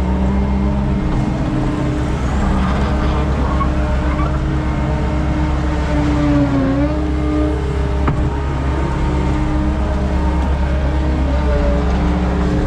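Skid steer engine running steadily under work, its pitch dipping briefly a little past the middle as it takes a load.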